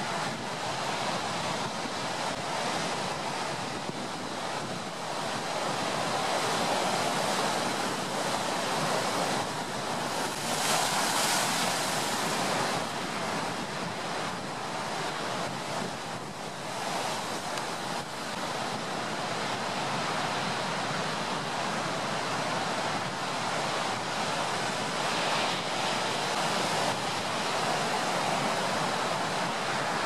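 Ocean surf washing in and out, blended with a steady brown-noise hiss. The waves swell and ease, with a brighter, fuller surge about a third of the way in and smaller ones later.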